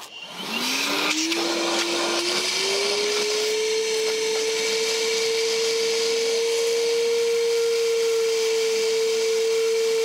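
Milwaukee M12 FUEL 12-volt cordless 1.6-gallon wet/dry vacuum switched on for a water-pickup test. Its motor spins up, rising in pitch over about three seconds, then runs at a steady pitch with a rushing airflow hiss.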